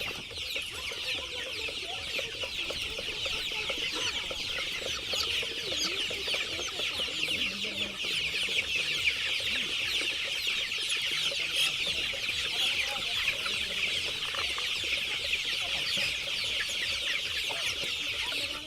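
A flock of desi chickens calling together, a steady dense chorus of many high, short chirps and peeps with occasional lower clucks.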